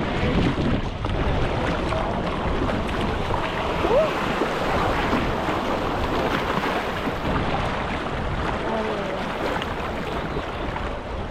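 River water rushing and splashing steadily around a raft, with wind on the microphone; a faint voice is heard briefly a couple of times.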